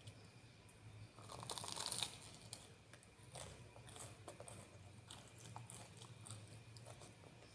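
Close-miked eating: a crunchy bite, the loudest crackle about one and a half to two seconds in, then quieter chewing with small crunches and clicks.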